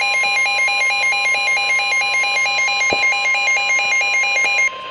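NOAA Weather Radio's steady 1050 Hz warning alert tone, the signal that a warning broadcast follows, with a loud, rapid two-tone electronic alarm warbling over it. The warbling stops shortly before the end while the steady tone carries on.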